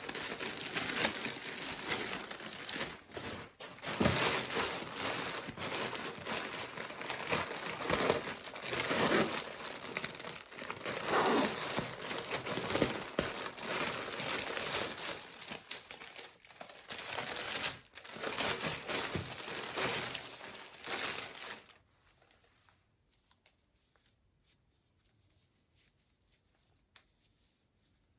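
Packaging crinkling and rustling as it is handled and unwrapped, with irregular louder handling bumps. It stops about three-quarters of the way through, leaving near silence.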